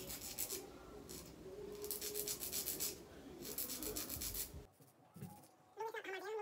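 Nail file rasping back and forth across fingernails in repeated short strokes, shaping them straight; the filing stops about four and a half seconds in.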